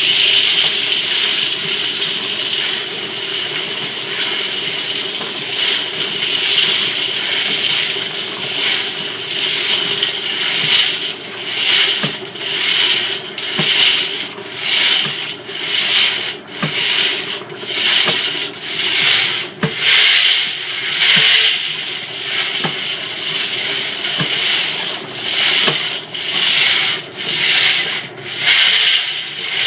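Wetted pyrotechnic stars sliding as a mass against the wall of a turning polished stainless steel star-roller drum: a steady rubbing scrape. From about a third of the way in it swells and fades about once a second. The stars slide without tumbling, a sign that the drum gives them no traction to cascade.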